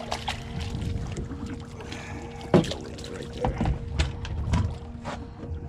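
Fluke being netted at the side of a boat: splashing water and irregular knocks as the landing net comes up against the hull, the loudest a sharp knock about two and a half seconds in. A steady low hum runs underneath.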